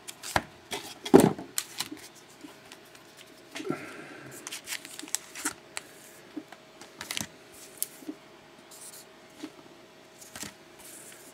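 Sealed hockey trading card packs handled and shuffled on a table: a series of crinkles, taps and clicks of the wrappers and cards, the loudest about a second in.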